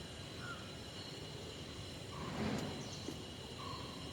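Quiet open-air ambience with a bird giving a few short, slightly rising chirps, and a brief soft rush of noise about two seconds in.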